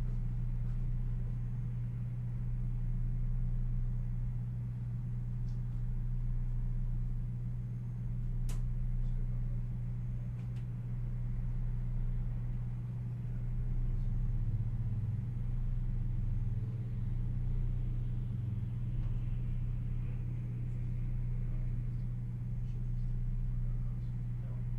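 Steady low hum of room tone with nothing else going on; a single faint click about eight seconds in.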